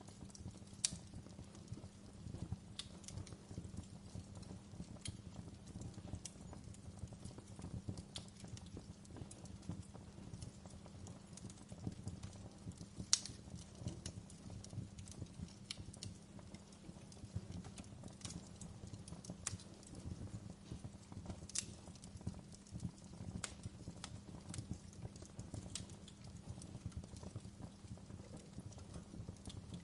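Campfire crackling: a steady low rumble of burning wood with scattered sharp pops and snaps every second or two, two of them louder, near the middle and about two-thirds of the way through.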